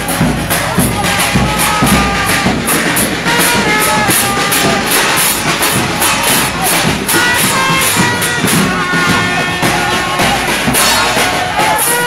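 Street band playing live: a bass drum beaten to a steady beat under a trumpet melody, with evenly spaced high percussion hits.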